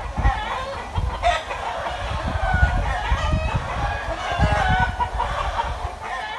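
A flock of domestic ducks calling, many short overlapping calls at once, with irregular low thumps underneath.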